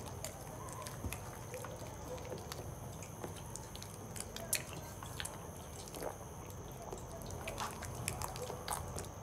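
Wet mouth smacks, licking and sticky clicks of someone eating akpu (cassava fufu) and soup by hand, irregular and scattered over a low background hum.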